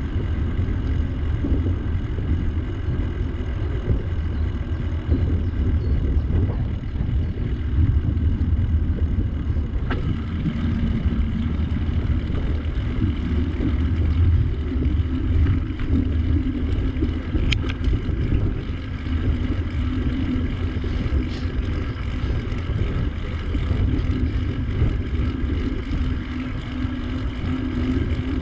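Steady low rumble of riding a bicycle: wind and rolling noise on the microphone, with a faint steady hum coming in about ten seconds in.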